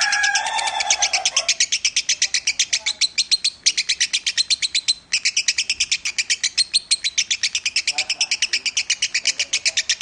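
A lovebird chattering in a long, fast, unbroken string of sharp high notes, about six or seven a second, with two brief breaks a few seconds in.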